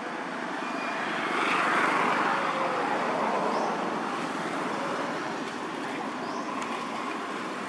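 Distant road traffic: a steady rushing noise that swells about two seconds in, like a vehicle going by, then slowly fades.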